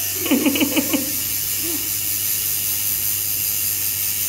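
Coil tattoo machine buzzing steadily as it works ink into skin on an arm. A short burst of laughter comes about half a second in.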